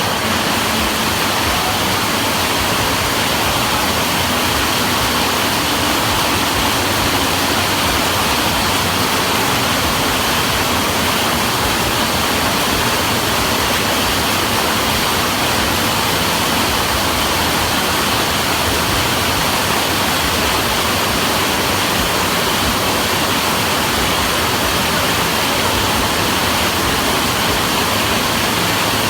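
Heavy rain drumming steadily on a metal sheet roof, a dense, unbroken hiss-like roar of drops.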